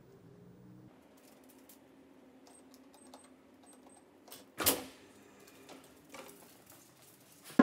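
Automatic glass door's mechanism opening with one loud clunk about halfway through, among faint clicks and light metallic jingles.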